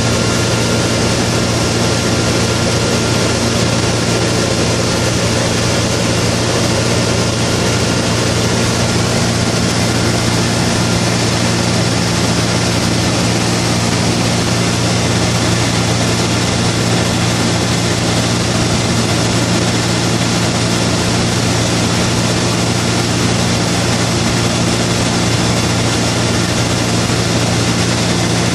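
Steady, unchanging drone of a light high-wing plane's engine and propeller in level flight, heard from inside the cabin, with an even hiss over it.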